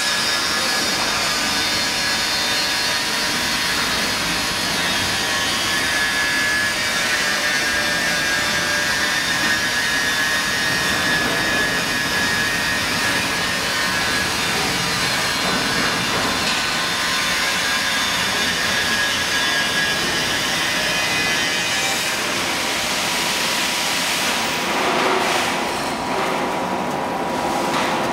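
Clear plastic shrink film crinkling and rustling as it is pulled by hand over the rollers of a shrink wrapping machine, over a steady loud mechanical hiss with a few faint steady tones. The sound changes in texture about 24 seconds in.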